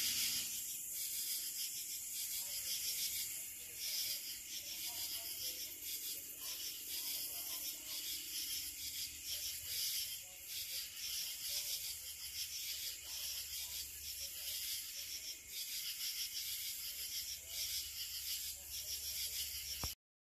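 Night insects chorusing: a dense, high-pitched hiss that pulses unevenly.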